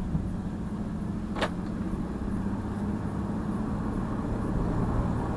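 2002 Jeep Liberty's 3.7-litre V6 running steadily under way on a test drive, with a low engine and road hum. A single sharp click comes about a second and a half in.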